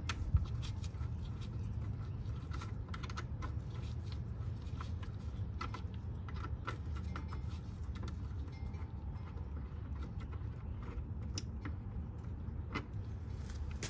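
Small, irregular clicks and ticks of a hand tool working a fairing bolt loose on a Kawasaki ZX-10R sport bike, over a low steady background rumble.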